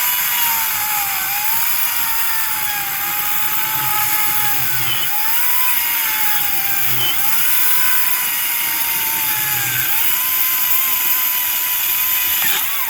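Echo DCS-2500T 56-volt brushless electric chainsaw cutting through a log, its high motor whine sagging in pitch four times as the chain bogs down in the wood and recovering each time. The whine stops near the end.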